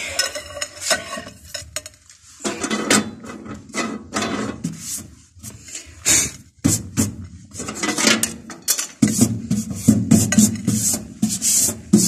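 Irregular clinking, knocking and scraping of hard parts being fitted inside a microwave oven's cavity as the turntable roller ring is set in place on the cavity floor.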